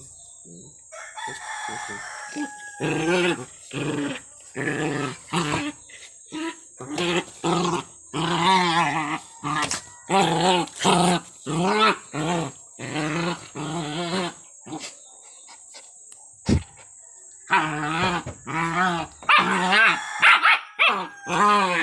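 Two young dogs play-fighting, giving short repeated barks and growls, about two a second. The calls pause for a couple of seconds about two-thirds through, where there is a single sharp knock, then start again.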